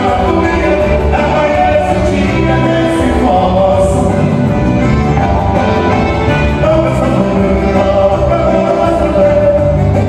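Live band music with accordion, keyboard and electric bass, and a man singing lead into a microphone.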